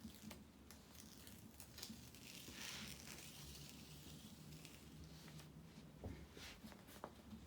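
Faint crinkling and small clicks of the clear plastic cover film being peeled back from a diamond painting canvas, with a brief louder rustle about two and a half seconds in.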